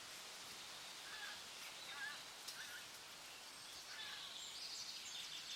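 Birds calling over a steady outdoor hiss: a few short calls between about one and two and a half seconds in, then quick high chirps near the end.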